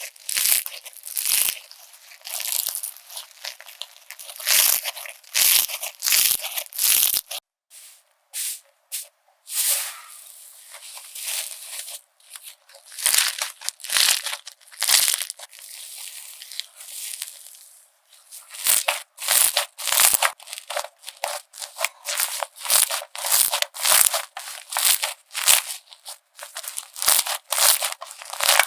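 Slime being squeezed and pressed by hand, giving a quick run of sharp crackling and popping squishes. It eases to softer, sparser squishing midway, then grows dense again near the end.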